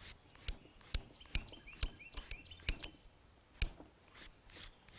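A knife blade being stropped on a leather rein, a series of quick strokes, each a sharp tick or slap, roughly every half second at first and then spaced out. Birds chirp faintly in the background.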